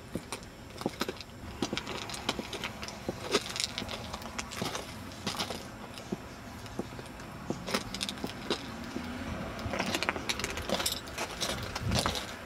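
Footsteps crunching irregularly on railway-track gravel ballast, with light metallic jingling mixed in. The crunches come thicker and a little louder near the end.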